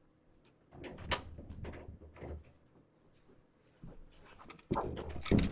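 Door being opened and handled: a scatter of short knocks and clicks, with a louder cluster of knocks near the end.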